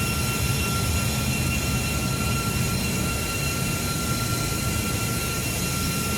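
Steam-turbine-driven boiler draft fans running at raised speed, a steady high whine over a low machinery rumble. Their speed has been raised to keep up draft while the firemen rake the coal fires.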